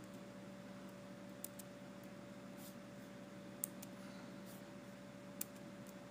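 Faint, scattered clicks of a computer mouse, about seven of them, over a steady low electrical hum and hiss.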